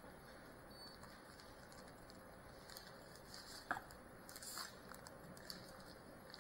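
Faint rustling of paper wrapping being handled and pulled from a cardboard box, with a few light clicks in the middle, one sharper than the rest, over a low steady hiss.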